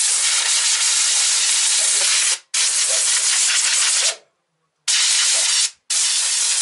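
Compressed-air blow gun blowing dust out of an electric polishing machine's motor armature, a loud hiss in four blasts: two long ones, then two short ones, each cut off sharply.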